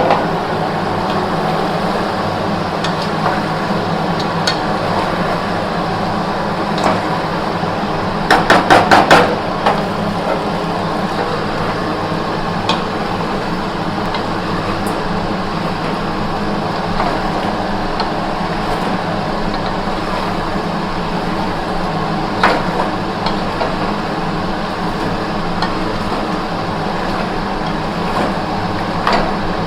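Chicken and potatoes frying in spiced masala in a pan, sizzling steadily over a low hum, with a spatula stirring, scraping and knocking against the pan: a quick run of about six knocks around eight seconds in and single knocks now and then.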